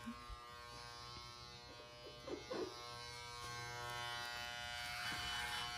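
Wahl electric shaver buzzing steadily and faintly while shaving a man's head. Brief faint voices come in about two and a half seconds in.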